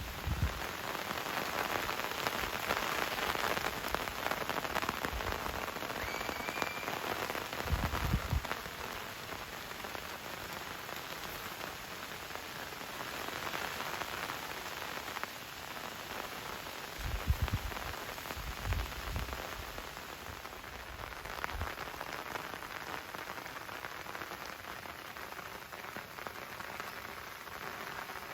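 Steady rain falling, a continuous even hiss, broken by a few brief low thumps: one about eight seconds in and a cluster some seventeen to nineteen seconds in.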